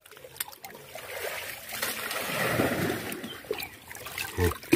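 Water splashing and sloshing, swelling to a fuller rush about halfway through and then easing off, with a short low thump near the end.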